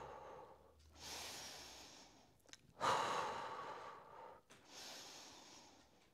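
A woman's slow, deep breathing, in through the nose and out through pursed lips. A quieter inhale comes about a second in, a stronger exhale about three seconds in, then another soft inhale.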